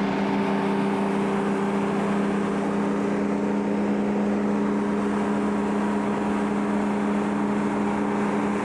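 A heavy machine's engine running at a steady speed with an even hum, and no hammer blows.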